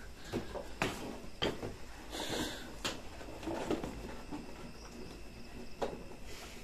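A sack being rummaged through by hand: soft rustling, a longer rustle about two seconds in, and a few sharp clicks and light knocks.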